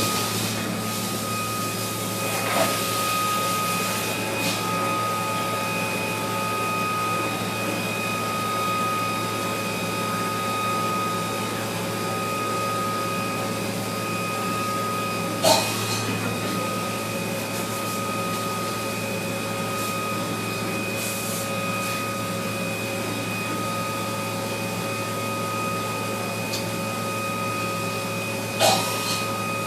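Mazak Nexus 410A vertical machining center running: a steady mechanical whine of several fixed pitches over a low hum, broken three times by a short sharp click.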